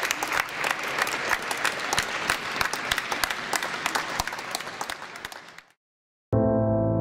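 Audience applauding, fading away about five and a half seconds in. After a brief silence, electric piano music begins near the end.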